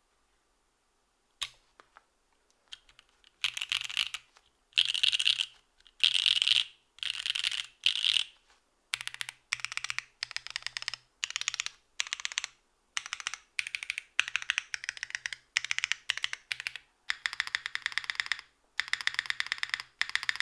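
Typing on a Singa Rubrehaku custom keyboard with Dragon Ghost switches and GMK keycaps, gasket-mounted on a full aluminium plate with no foam. A few single keystrokes come after a near-silent first second, then fast typing in runs of about a second with short pauses between them.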